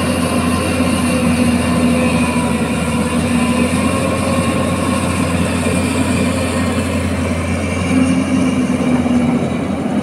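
Hyundai 215L crawler excavator's diesel engine running steadily under load while the machine digs and swings, with a constant hum of several steady tones.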